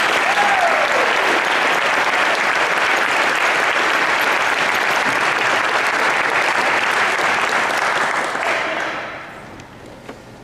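An audience in a large church applauding steadily, the clapping dying away about nine seconds in.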